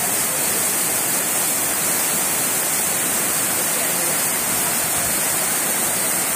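Water spilling in sheets off an overflowing aqueduct trough, together with heavy rain: a steady, unbroken rush of falling water.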